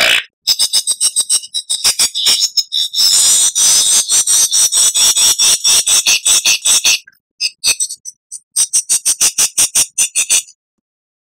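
Lyrebird song: rapid trains of sharp high notes, about eight a second, that run together into a dense chatter for a few seconds, break off, and return in a second quick series before stopping abruptly.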